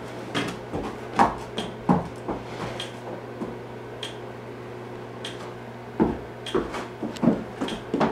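Hooves of a newborn Friesian filly knocking on a hard floor: scattered single knocks with a light clatter, sparse in the middle and bunching into a quicker run near the end as she turns.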